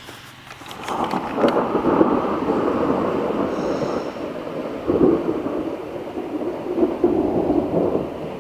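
Thunder rolling: a long rumble that builds about a second in and carries on with swells, from a storm still some way off.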